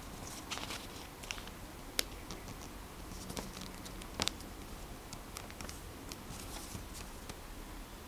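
Sheet of origami paper being folded and creased by hand: soft rustling and crinkling with scattered sharp clicks, the sharpest about two seconds in and a quick pair just after four seconds.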